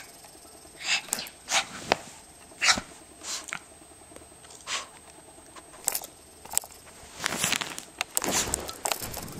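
A dog spazzing out, making a scatter of short scuffling noises and sharp clicks at irregular intervals, busiest near the end.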